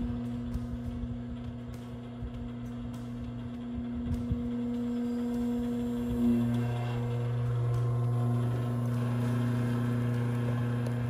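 Electric rotisserie spit motor running, a steady low hum.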